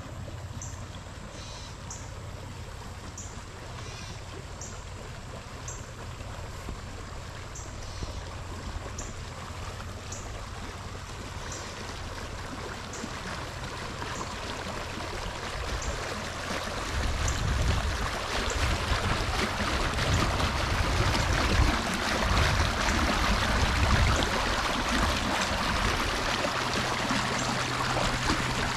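Running water, a spring-fed stream, rushing steadily and growing louder through the second half, with a low rumble under it.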